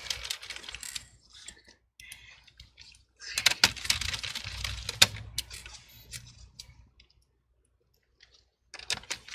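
Small clicks, taps and rustling as laptop cooling fans and a copper heat-pipe heatsink are handled and seated in the chassis, with a few sharper clicks among them. The handling stops near the end, leaving a second or so of near silence.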